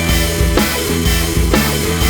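Backing rock music with drums and guitar, a steady beat about twice a second.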